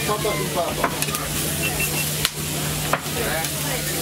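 Food sizzling on a hot grill, a steady hiss broken by a few sharp clicks, with voices chattering in the background.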